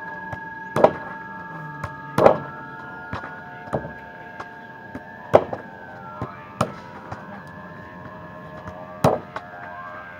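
Soccer balls being kicked and thudding against wooden rebound boards: a series of sharp impacts a second or a few seconds apart, over a steady high tone.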